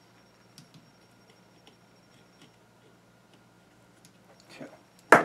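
Faint, scattered light clicks of small screws, a nut and pliers being handled against the metal chassis of an RC crawler, with one sharp, loud click near the end.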